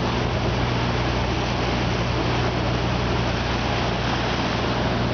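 Sailboat motoring on a calm sea: a steady low engine drone under an even hiss of wind and water.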